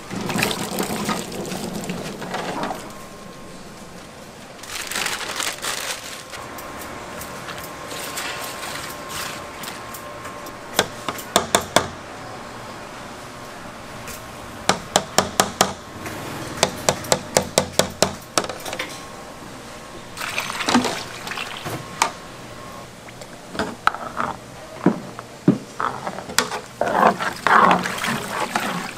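Food-stall cooking noise: a steady hiss with louder stretches, and runs of quick, sharp knocks at about four a second in the middle.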